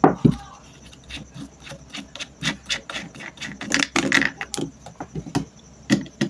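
Clicks, knocks and scraping of a stand fan's parts being handled as it is taken apart to remove its motor, with a busier stretch of rubbing and scraping about four seconds in.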